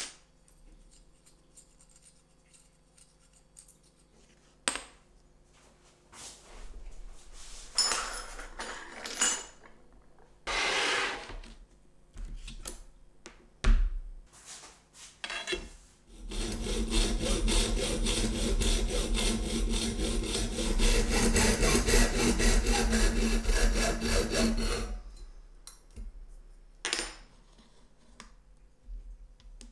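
Clicks and rubbing of small metal parts being handled, with a sharp knock, then a Bosch PST 650 jigsaw runs steadily for about eight seconds before stopping.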